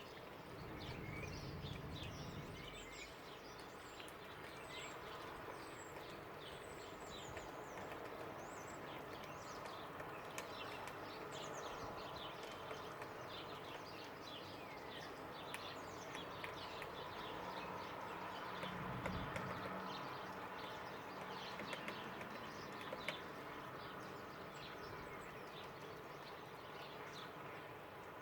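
Many small birds chirping and twittering in quick short notes over a steady background hum, with a low rumble near the start and again about two-thirds of the way through.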